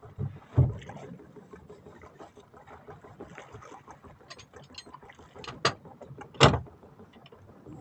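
Light clicking and three sharp knocks against a small boat's hull, one soon after the start and two close together near the end, as a fisherman handles gear over the side.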